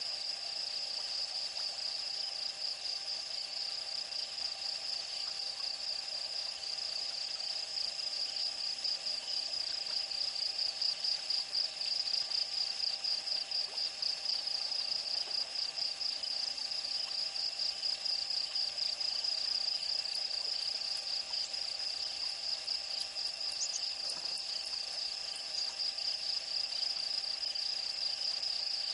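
Steady chorus of night insects: a high-pitched trill pulsing rapidly without pause, with fainter, lower steady tones beneath it.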